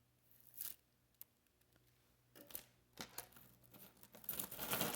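Jewelry being handled and drawn out of a plastic bag: a few soft clicks of beads, then louder crinkling of the bag and rattling beads near the end.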